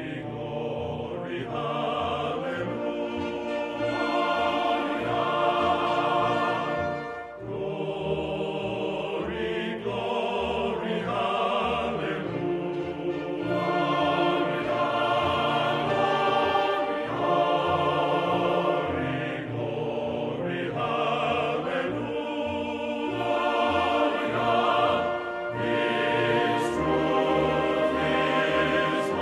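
Choral music with orchestral accompaniment: sustained sung notes in long phrases, with a brief dip about seven seconds in.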